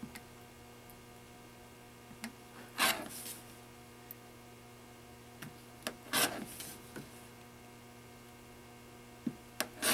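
Rotary cutter slicing along a ruler through fabric strips with foundation paper on top: a few short rasping cuts, about three seconds apart. A steady electrical hum runs underneath.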